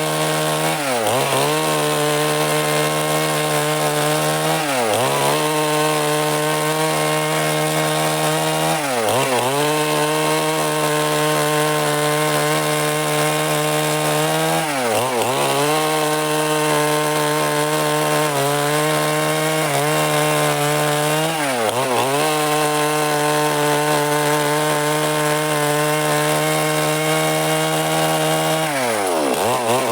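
Stihl MS 382 two-stroke chainsaw running at high revs while cutting wood, its engine pitch dropping sharply and recovering several times as the chain bites into the cut.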